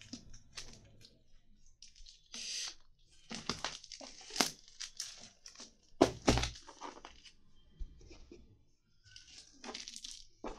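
Plastic courier bag crinkling and rustling as it is handled and pulled open, in irregular crackly handfuls with short pauses between.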